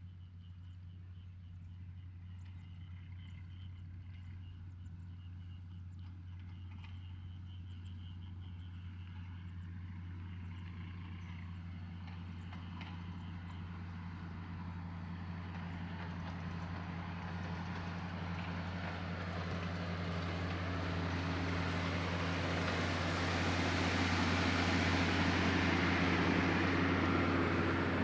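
Diesel engine of heavy road-construction machinery running with a steady low hum. It grows louder over the last third, with a rising rush of noise that is loudest near the end.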